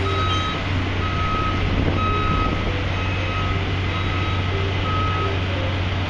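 Vehicle reversing alarm beeping steadily about once a second, each beep a single high tone, stopping near the end. Under it runs a continuous low hum of traffic and site noise.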